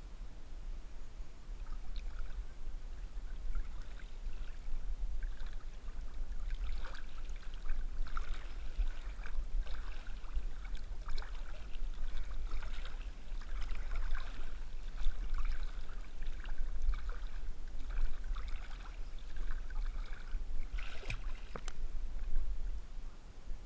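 River water splashing and lapping irregularly against a camera bobbing at the surface during a swim, over a steady low rumble. The splashing grows busier after the first few seconds, with a sharper splash near the end.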